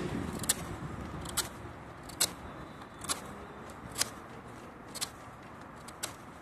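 Scandi-ground Morakniv Robust knife blade shaving wood while whittling a point on a stick: short, sharp scraping cuts about once a second.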